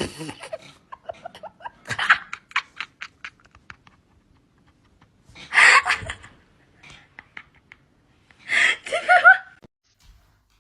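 A person laughing in quick pulses, then two louder breathy bursts of laughter.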